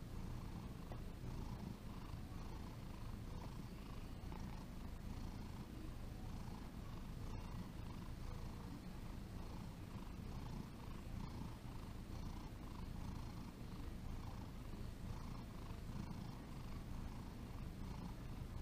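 Domestic cat purring steadily while its head is being rubbed, the purr pulsing in a slow, regular rhythm.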